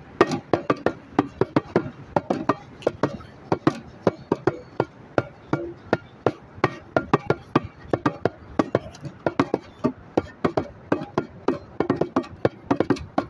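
Bongos played by hand: a quick, uneven run of sharp strikes, several a second.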